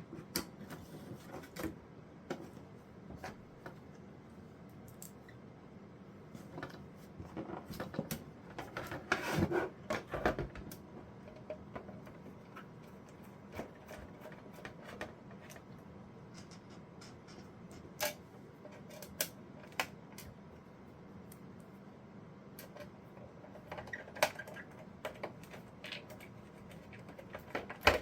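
Hands handling hardware: scattered small clicks, taps and scrapes, with a denser stretch of rubbing and knocking about nine seconds in, over a low steady hum.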